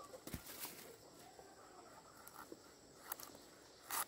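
Faint scattered rustling and light clicks, with a louder short crackle near the end.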